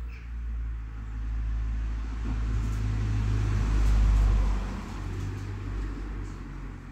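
A passing road vehicle: a low rumble that swells to its loudest about four seconds in, then fades. Over it come a few faint crisp clicks of a Hermann's tortoise biting into strawberry.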